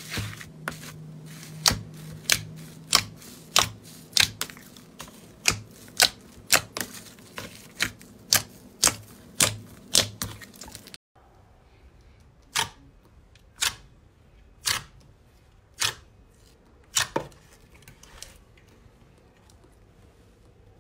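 Slime being pressed and poked by fingers in a plastic tub, giving sharp popping clicks about every half second or so. After a brief break about halfway through, the pops come more slowly, about one a second.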